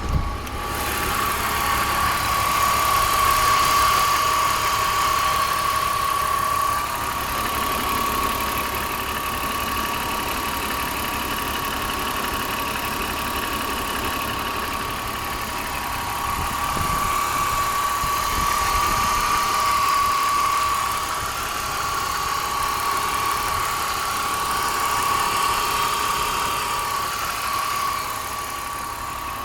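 BMW M54B30 3.0-litre straight-six engine running, with a steady high whine over it and a ticking noise from about seven seconds in to about fourteen, whose cause the owner does not know.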